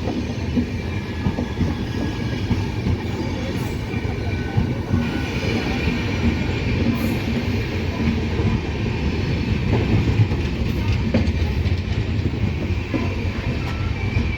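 Indian Railways train rolling into a station: a steady heavy rumble of wheels on the track with rail-joint clatter. A faint high brake squeal joins about five seconds in.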